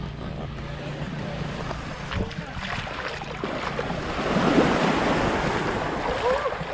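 Small waves washing in the shallows at the shoreline, swelling louder a little past halfway through, with wind buffeting the microphone.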